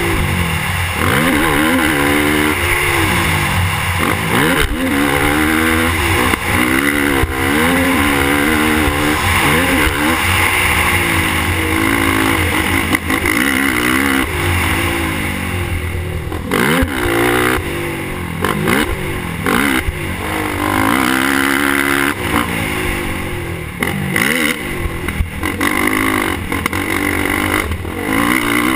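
Suzuki LTR450 sport quad's single-cylinder four-stroke engine revving up and dropping back again and again as it is ridden hard around a dirt track, with a steady rush of wind noise.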